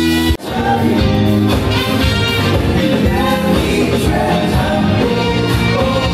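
Live band playing an upbeat song through the venue's PA, with a lead singer and backing voices over keyboards and rhythm section. About half a second in, the sound drops out for an instant and comes back.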